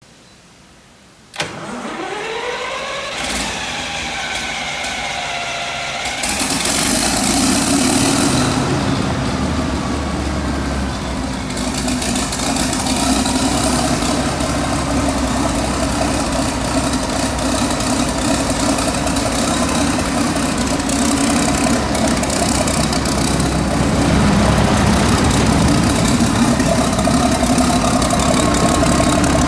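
Yuchai natural-gas engine of a 250 kW generator set being started. About a second and a half in there is a click and a rising whine as it cranks; around six seconds in the engine catches with a hiss that lasts several seconds, then it settles into a steady run.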